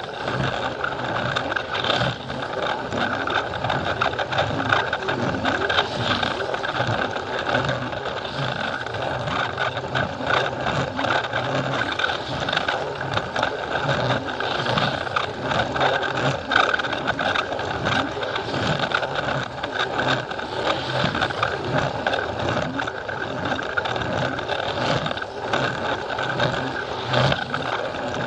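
Plarail toy train's small battery motor running with a steady whine, its gears and wheels rattling on the plastic track.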